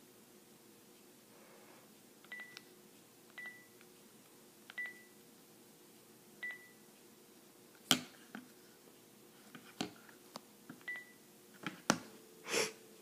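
Cordless phone handset beeping as its keys are pressed, five short single-pitch beeps spaced a second or more apart. Sharp clicks and knocks from the handset being handled and laid on a table, the loudest about eight and twelve seconds in.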